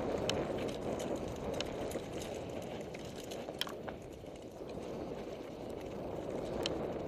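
Mountain bike riding along a grassy dirt singletrack: a steady rolling rumble of tyres over the ground, with a few sharp clicks and rattles scattered through it.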